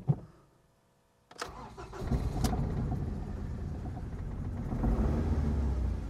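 Ford Mondeo Mk3 petrol engine cranked by its starter about a second and a half in, catching within a second and then running, louder for a moment near the end. Its spark plugs are carbon-fouled and it has been misfiring on cylinders 1 and 4.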